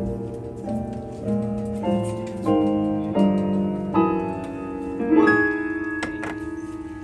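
Jazz piano played live: chords struck one after another, roughly every half second to a second, climbing in pitch. About five seconds in, a chord is held and left ringing.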